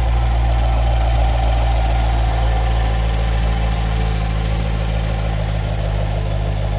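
C7 Corvette's 6.2-litre LT1 V8 idling steadily.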